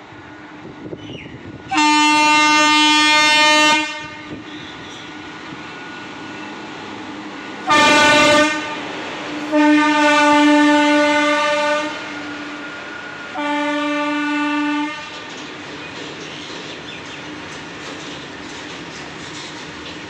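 Indian Railways electric locomotive sounding its horn in four blasts: a long one, a short one, a long one, then a slightly shorter one. Under and after them a long rake of covered goods wagons rolls past at speed, with steady wheel clatter on the rails.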